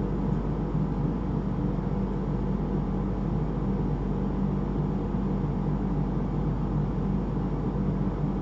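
A steady low machine hum with an even hiss, unchanging throughout.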